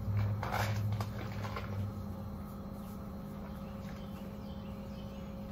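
Outdoor ambience: a steady low mechanical hum, with a deeper drone swelling over the first two seconds, and a few faint bird chirps.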